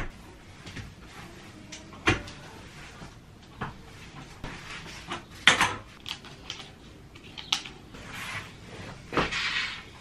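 Plastic clicks and knocks as a Swiffer Sweeper mop is handled and a wet mopping cloth is fitted to its head, with sharp knocks about 2, 5½, 7½ and 9 seconds in and a rustle of the cloth near the end.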